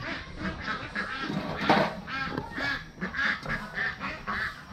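Domestic ducks quacking in a rapid run of short calls, with one louder sharp knock about two seconds in.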